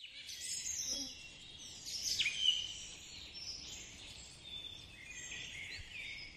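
Several birds chirping and calling over one another in short whistles that slide up and down in pitch, over a faint steady hiss.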